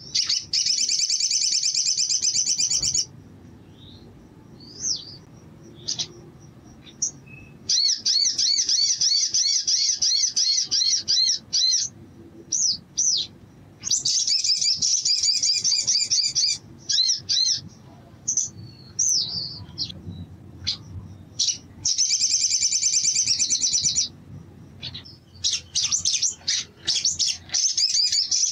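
Caged sogon (sogok ontong) songbird singing in long bursts of rapid, high, warbling trills of a few seconds each, five times, with short single chirps and whistled notes between the bursts.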